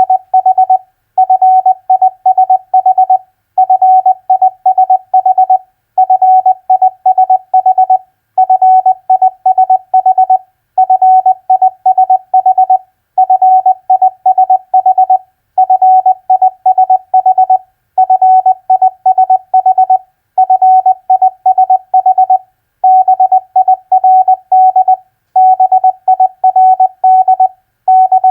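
Morse code practice tone: a single steady tone keyed on and off in dots and dashes at 20 words per minute, spelling common four-letter words such as FISH, BIRD and BUCK. Each word lasts about two seconds, with a short pause before the next.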